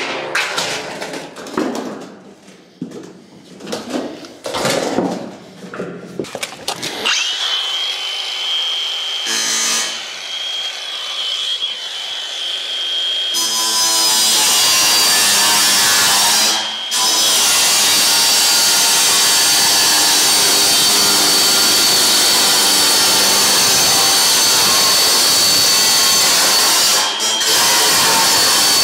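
Corrugated steel cladding sheet clattering as it is handled and laid flat, then a cordless Milwaukee angle grinder starts with a steady high whine about seven seconds in. From about halfway it cuts across the steel sheet with a loud, harsh, steady screech that breaks off briefly twice.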